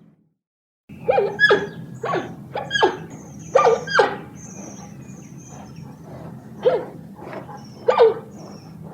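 Giant panda giving short, high calls that drop in pitch, in quick runs of two or three, starting about a second in with a lull in the middle, over a low steady hum.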